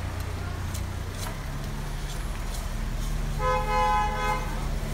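A vehicle horn sounds once for about a second, a little past the middle, over the steady low hum of a running engine.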